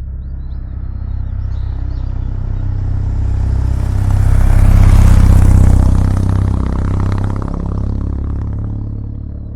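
Exhaust note of a 2024 Kawasaki W800's air-cooled parallel-twin engine through its stock muffler. It swells to a loud peak about five seconds in, then fades.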